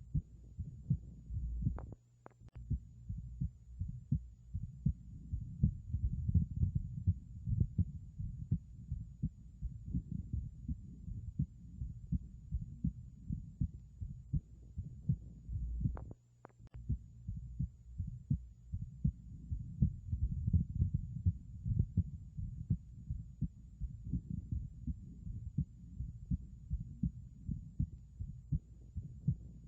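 Abnormal heart sounds of a bicuspid aortic valve heard through a stethoscope: a steady run of low, repeating heartbeats. The beating breaks off twice with a sharp click and a brief gap, about two seconds in and again about sixteen seconds in.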